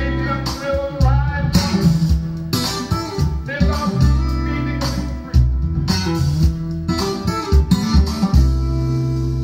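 Guitar-led music played back through a Yamaha M-80 power amplifier and B&W CM10 loudspeakers, with bending guitar notes over a steady bass line.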